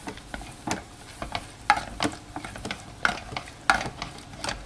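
Plastic spoon stirring instant mashed potato flakes and water in a pressure cooker's metal inner pot, with irregular wet scrapes and knocks of the spoon against the pot, mixing out lumps.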